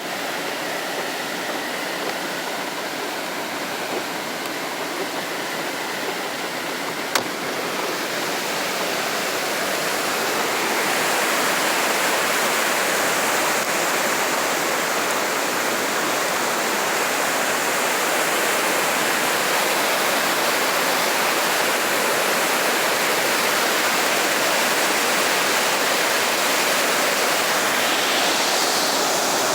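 Heavy rain pouring down with rushing water, a steady roar that swells louder about a third of the way in and then holds. A single sharp click sounds just before it swells.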